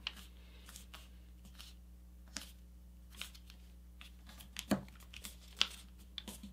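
Faint rustling and crackling of folded printer paper as a paper airplane's thick layered wing is pressed and creased by hand. It comes as a handful of short, sharp crackles, the loudest about three-quarters of the way through, over a steady low hum.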